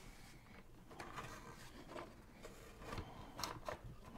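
Faint handling noise of speaker wires being gathered and routed inside a wooden loudspeaker cabinet, with rustles and a few light clicks. The clicks bunch about a second in and again near the end.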